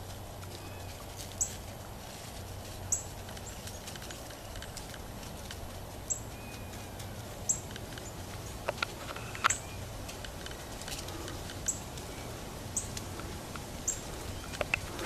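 Outdoor ambience: a steady low hum with short, sharp, high-pitched chips every second or two, and a few brief soft clicks.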